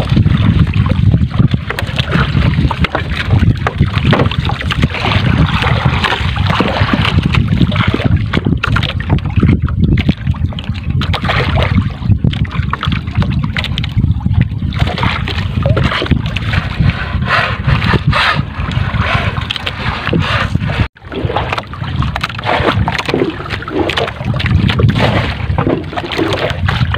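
Steady rush of wind on the microphone and choppy water slapping against a small wooden outrigger fishing boat at sea.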